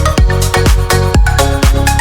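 Electronic dance music with a steady four-on-the-floor kick drum, about two beats a second, and a bass line.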